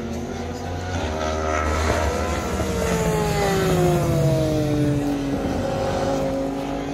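Racing motorcycle engine going past at speed. Its note climbs and then drops steadily in pitch as it passes, loudest about four seconds in.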